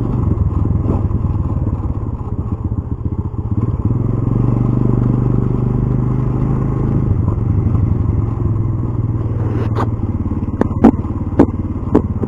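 A motorcycle engine runs steadily underway, a low drone with rumble, picked up through a foam-wrapped clip-on mic. Near the end comes a quick series of about five sharp knocks.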